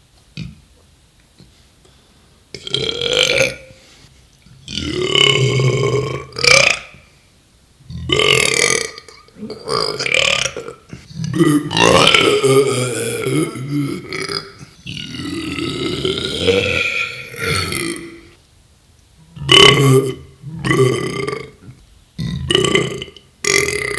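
A man belching over and over: about a dozen loud burps with short gaps between them, several of them long and drawn out for two to three seconds.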